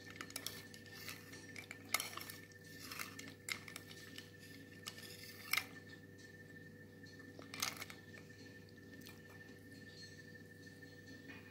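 Metal spoon clinking and scraping against a metal dessert bowl of ice and syrup, in scattered sharp taps, loudest about two seconds in and again at about five and a half seconds. A faint steady hum runs underneath.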